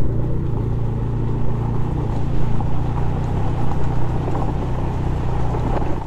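Motorcycle engine running steadily under way, with wind noise on the microphone. The sound cuts off abruptly at the end.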